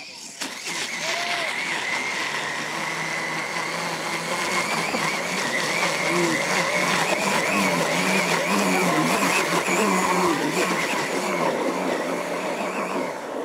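R/C solid-axle monster truck on paddle tires hydroplaning across a pond: its motor whines steadily with a wavering pitch while the tires churn up a constant spray of water.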